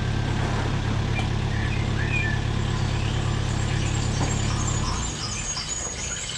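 A vehicle engine idling with a steady low hum, which stops about five seconds in.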